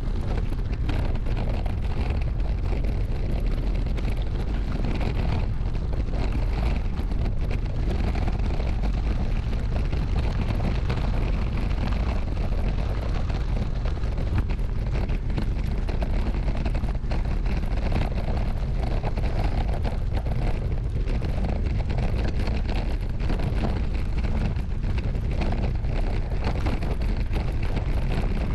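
Steady wind rumble and buffeting on a moving GoPro's microphone.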